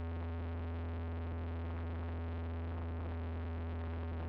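Cessna 172's piston engine and propeller droning steadily in flight, heard from inside the cabin: a constant deep hum with steady higher tones above it.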